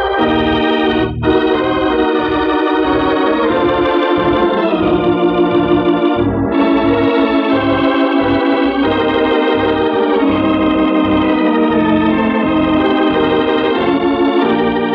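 Organ playing the closing theme of an old-time radio drama: loud, sustained chords that move to new chords every second or two, with a brief break about a second in.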